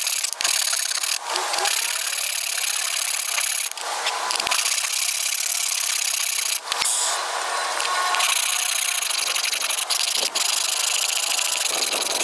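Hand tool scraping down a poplar wood handle in long, rough strokes, with short breaks every one to three seconds.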